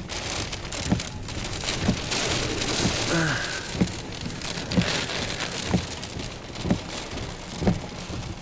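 Heavy rain pelting a storm-chase vehicle, with a short low thump about once a second.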